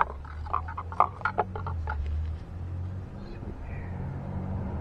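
Light clicks and rustles of a Taida 61mm GY6 piston ring and its cardboard box being handled with gloved hands, a quick run of them in the first second and a half. A low steady hum sits underneath.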